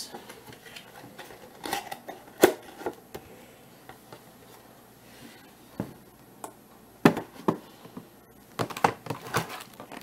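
Scattered taps, clicks and light knocks of a cardboard box and a clear plastic tray being handled and set down on a hard tabletop, a few about two to three seconds in and a denser cluster near the end, with quiet stretches between.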